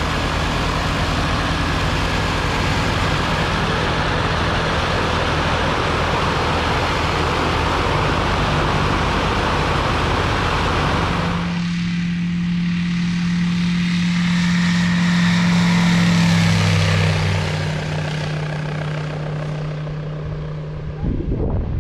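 C-42 microlight's propeller engine running steadily while it warms up on the ground. About halfway through the sound changes suddenly to a smoother, lower hum that swells and then fades.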